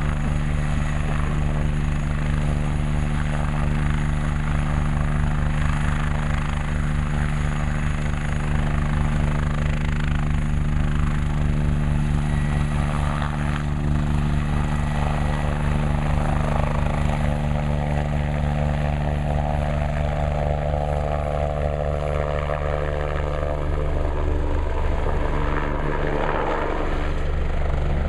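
Rescue helicopter running close by with a loud, steady rotor and turbine sound, its pitch shifting a little a few seconds before the end.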